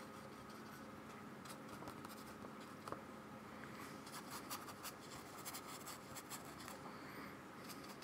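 Small paintbrush dabbing and scratching gouache onto toned paper: faint clusters of short scratchy strokes starting about a second and a half in, with one sharper tick about three seconds in, over a low steady hum.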